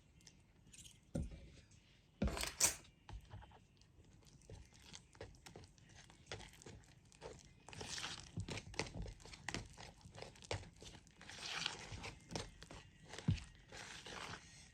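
Irregular rustling, scraping and light knocks of kitchen utensils and packaging being handled while baking ingredients are measured and mixed, loudest about two seconds in.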